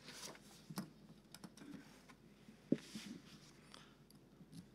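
Faint room tone with scattered soft clicks and rustles of things being handled on a desk near a microphone, with one sharper tap a little past halfway.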